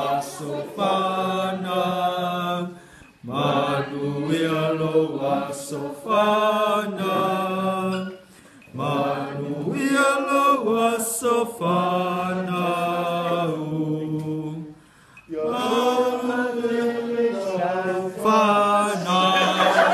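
Voices singing together in long, held phrases, four phrases with brief breaks between them.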